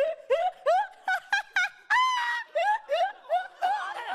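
A man laughing in quick, high-pitched, squeaky whoops, each rising in pitch, about three a second, with one longer squeal about two seconds in.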